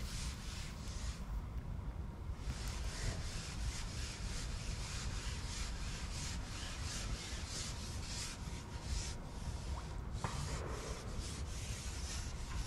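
Steady rubbing and rustling noise over a low rumble, with no clear single event.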